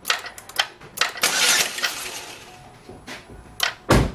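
Ignition key being cycled on and off a couple of times: sharp clicks and the keys clinking, with a brief hiss about a second in and one heavy thump near the end.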